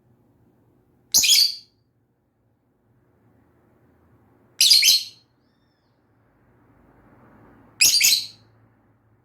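Pet lovebird giving three short, shrill chirps, spaced about three seconds apart.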